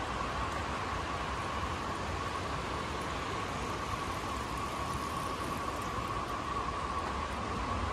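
Steady rush of flowing creek water, with a constant high hum running through it.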